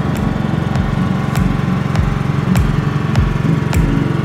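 Small boat engine running steadily, with background music's steady drum beat of about one thump every 0.6 seconds.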